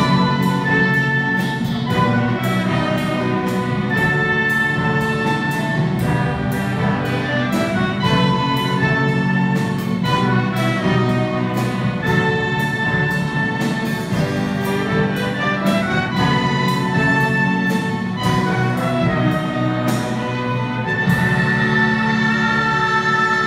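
Youth orchestra of strings, brass and drum kit playing an arrangement with a steady beat; about 21 seconds in the beat stops and the ensemble holds a long closing chord.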